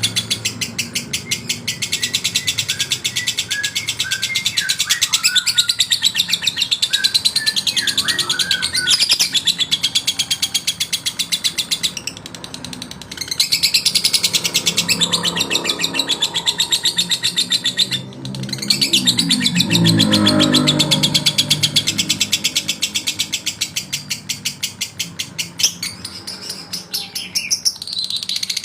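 Male lovebird singing a long, fast, high-pitched chattering song (ngekek), breaking off briefly twice.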